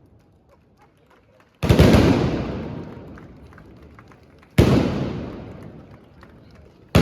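Trabucs (Catalan blunderbusses) firing blank gunpowder charges: three sudden, loud blasts a couple of seconds apart, the last right at the end, each trailing off in a long echo.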